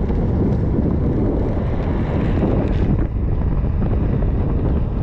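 Steady wind buffeting the microphone over the rumble of skateboard wheels rolling on asphalt.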